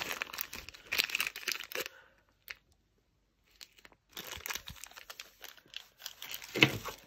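Clear plastic bags crinkling as they are handled: first a small zip-lock bag of beads, then, after a pause of about two seconds, a larger bag being rummaged through. A sharper knock comes near the end.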